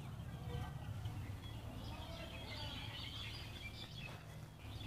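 Birds chirping in scattered short calls, busiest in the middle, over a steady low outdoor rumble.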